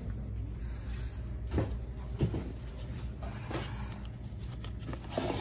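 A few light knocks and rustles of handling, over a steady low hum of store ambience.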